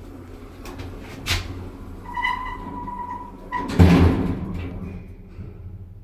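Lift car's automatic sliding doors closing. A steady beep sounds for over a second partway through, and the doors shut with a heavy thud about four seconds in.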